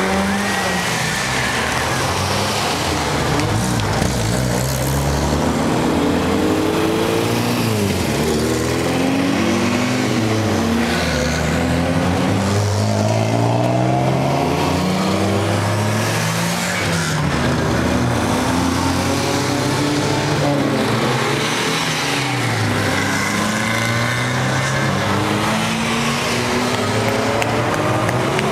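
A line of race cars pulling away one after another, their engines accelerating past in overlapping rising and falling notes.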